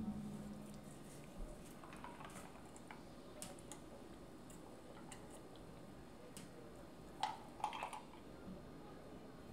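Faint close-up clicks and light ticks of handling food and a glass, with a short cluster of crackly clicks about seven to eight seconds in as a king crab leg is picked up. A low thud dies away at the very start.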